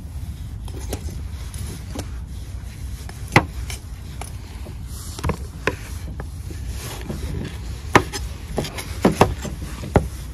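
Chef's knife chopping boiled pork on a wooden cutting board: irregular sharp knocks of the blade striking the board, sparse at first and coming faster in the second half. A steady low rumble runs underneath.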